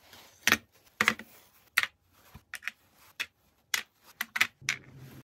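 Light clicks and taps of resin garage-kit parts being handled and set down one by one on a hard board, about a dozen at irregular intervals.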